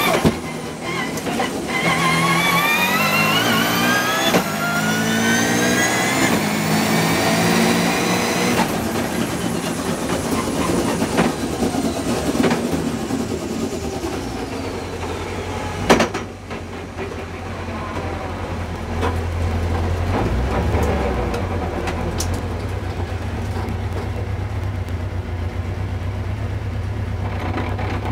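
Engine of an 800 bhp Subaru Legacy race car, heard from inside the caged cabin, revving hard and climbing in pitch through several quick gear changes, then easing off as the car slows. About halfway there is one sharp crack, after which the engine settles into a low, steady idle as the car comes to a stop.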